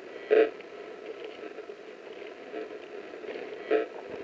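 Footsteps on the forest floor: three short scuffs in leaf litter and undergrowth, one near the start and two in the second half, over a steady low hiss.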